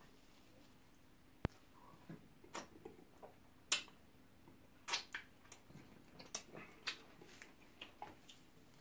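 Quiet eating sounds of two people swallowing pounded yam dipped in ogbono soup by hand: scattered soft wet smacks and sticky clicks at irregular intervals, with one sharp click about a second and a half in.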